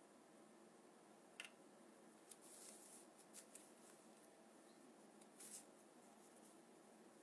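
Faint room tone with a few brief soft scrapes and light clicks from handling a calligraphy brush and paper, the loudest near the middle and again about five and a half seconds in.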